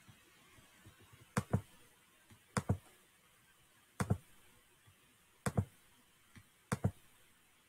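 Computer mouse button clicked five times, about once every second and a half; each click is a quick pair of ticks as the button is pressed and released.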